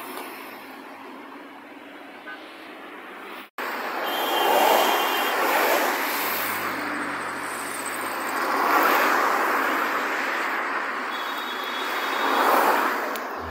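Cars driving past on a street, passing one after another about every four seconds, each swelling up and fading away. Before them, a few seconds of steady, lower road noise, cut off abruptly.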